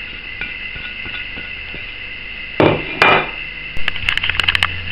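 Bowls handled on a kitchen counter: two scraping knocks about two and a half and three seconds in, then a quick run of sharp clicks.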